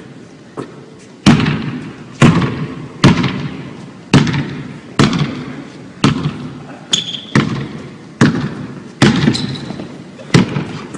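Basketball dribbled on a hardwood gym floor: slow bounces about once a second, each ringing out in the hall's echo. A brief high squeak about seven seconds in.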